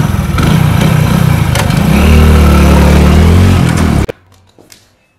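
Motorcycle engine running hard and revving, rough at first, then holding a steady drone before cutting off abruptly about four seconds in.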